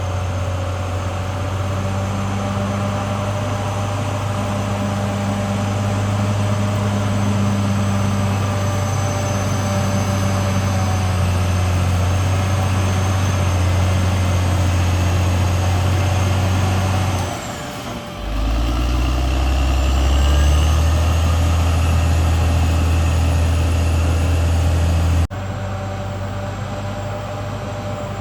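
Cat D6R XL bulldozer's diesel engine running under load, with a thin high whine over its low hum. About two-thirds of the way through, the engine dips and its pitch falls, then it picks back up. Near the end the sound changes abruptly and drops in level.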